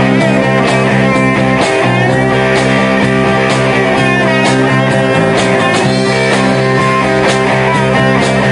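Live rock band playing loudly through a PA: electric guitars, bass and drum kit, with drum hits keeping a steady beat.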